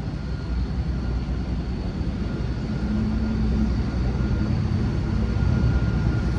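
Vehicle noise: a steady low rumble with a faint, steady high whine over it, growing a little louder through the middle.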